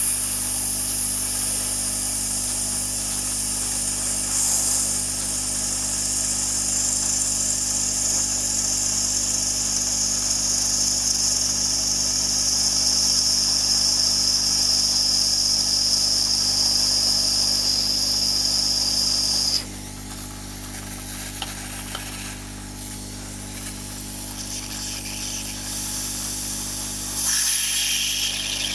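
Aoyue 968A+ hot air rework gun blowing onto a melting ice cube: a steady high hiss of air that cuts off suddenly about two-thirds of the way through, leaving a quieter stretch with a few faint clicks, and comes back near the end.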